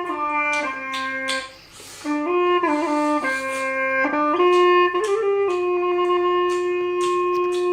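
Background music: a single wind instrument plays a slow melody in stepping notes and ends on a long held note, with short clicks heard over it.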